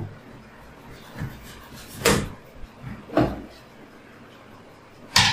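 Cardboard box of a toner cartridge being opened with scissors and by hand: a few short knocks and scrapes of the cardboard, the loudest near the end.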